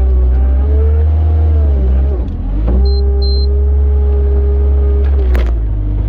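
Tractor engine running steadily while spreading muck; its pitch dips briefly about two seconds in and then recovers. Two short high beeps come around three seconds in, and there is a sharp click near the end.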